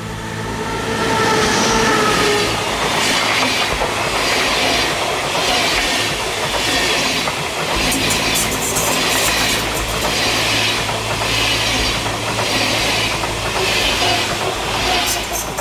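A train rolling past on the tracks, building up over the first two seconds, then a steady clickety-clack of wheels over rail joints, a beat a little under every second.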